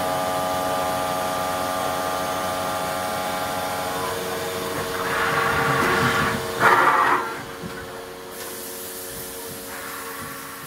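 Hitachi Seiki HS 500 horizontal machining center running, a steady hum of several tones. About five seconds in, a louder rushing noise rises and peaks near seven seconds, then stops, leaving the hum quieter.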